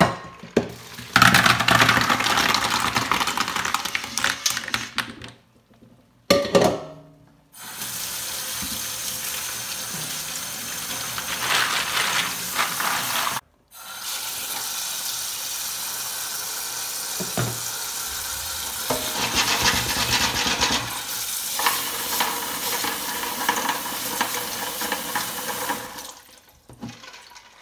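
Boiled snails and their cooking water poured from a pot into a plastic colander in a stainless steel sink, then a kitchen tap running steadily into the pot to rinse the snails. The tap water stops briefly about halfway and again near the end.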